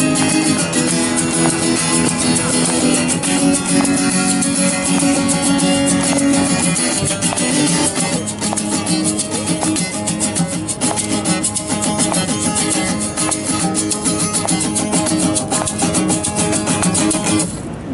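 Acoustic guitar strummed in quick, even strokes through the closing instrumental part of a song, with held chord notes ringing under it, then dropping away right at the end.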